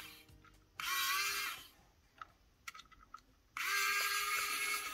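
A small electric motor whirring in two short runs. Each run rises in pitch as it spins up, then holds steady; the first lasts under a second, and the second starts about three and a half seconds in and is still running at the end.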